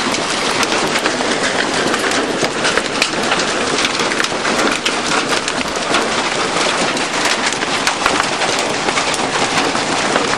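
A loud hailstorm: hailstones bigger than marbles pelting down in a dense, steady stream of countless sharp hits.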